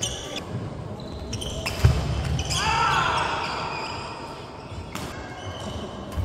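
Badminton doubles rally in a gym: sharp racket hits on the shuttlecock and sneakers squeaking on the wooden court floor. A heavy thump comes about two seconds in.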